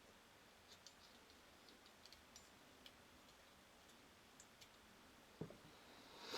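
Near silence with faint, scattered small clicks and ticks from working the parts of a universal joint during assembly, and a soft knock near the end.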